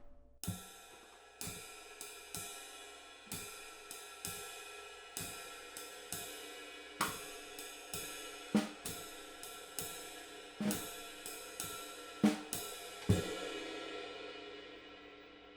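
A cymbal with no rivets, struck with a drumstick in a slow jazz pattern of about one stroke a second, with a few louder accents. Without rivets each quarter note is shorter and less sustained, with no sizzle. The last stroke rings out and fades over the final couple of seconds.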